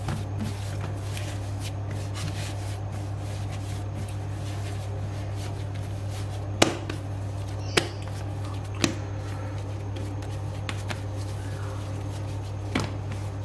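Pizza dough being kneaded by hand on a floured worktop: soft rubbing and handling, with four sharp knocks as the dough is pressed and thumped against the surface, the first the loudest. A steady low hum lies underneath.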